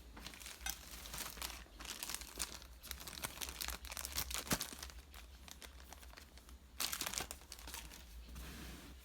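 Packaging of a new angle grinder being handled and unpacked: irregular crinkling and rustling, with a sharp knock about four and a half seconds in and a louder rustle near seven seconds.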